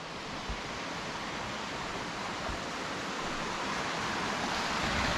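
Steady rush of falling water from a waterfall, slowly growing louder.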